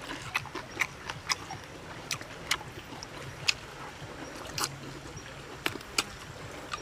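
Wet mouth sounds of eating roasted chicken: chewing and lip-smacking as meat is sucked off a bone, in sharp, irregular smacks about two a second.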